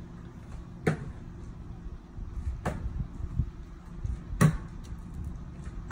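Plastic water bottle landing hard on the ground in repeated bottle flips: three sharp knocks nearly two seconds apart, and a fourth at the very end.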